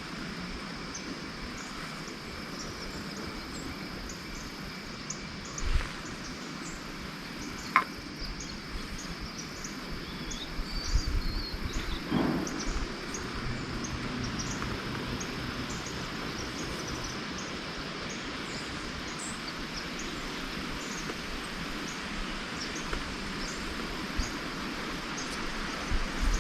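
Marsh ambience before dawn: insects chirping in a steady, regular rhythm over a constant hiss. There are a few soft rustles and a short high call near the middle.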